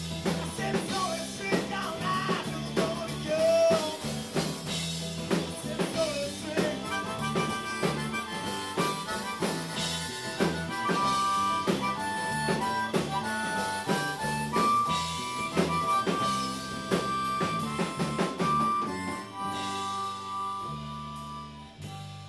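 Live rock band with a harmonica solo over acoustic guitar, electric bass and a drum kit keeping a steady beat. Near the end the drums stop and the last chord rings out and fades.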